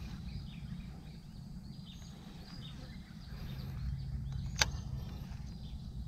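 Outdoor ambience with a steady low rumble and faint, scattered bird chirps, broken by a single sharp click about four and a half seconds in.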